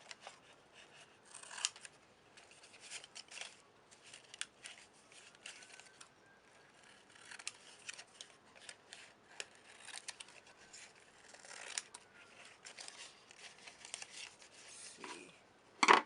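Scissors trimming paper in short, irregular snips, with paper rustling between cuts and a louder knock near the end.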